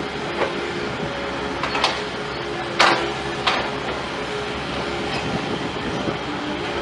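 Heavy machinery running steadily, with about five sharp metallic clanks, the loudest a little before the middle.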